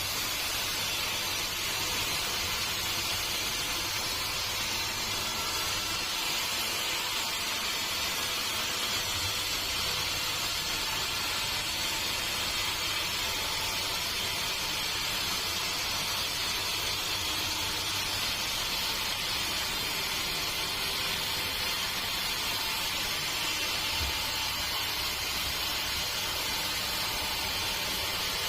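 Sawmill machinery running with a steady, unchanging hiss.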